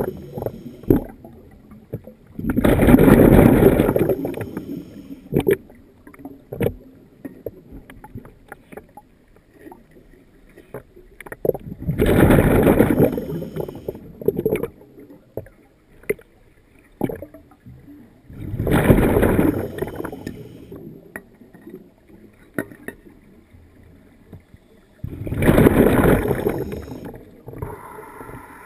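Scuba diver's exhaled breath bubbling out of the regulator, heard underwater: four bubbly rushes each lasting a second or two, several seconds apart, with faint clicks and crackles between them.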